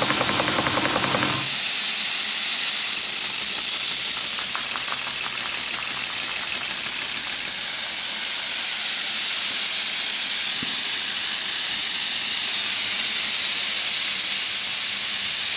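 Small horizontal steam water pump on a model steam plant clattering in a quick rhythm, stopping about a second and a half in. After it stops there is a steady, loud hiss of escaping steam.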